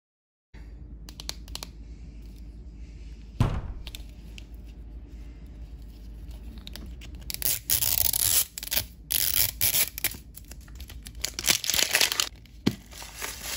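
Plastic wrapper on an L.O.L. Surprise doll ball being crinkled and torn off by hand, loudest in several long crinkling bursts in the second half. A single knock comes about three and a half seconds in.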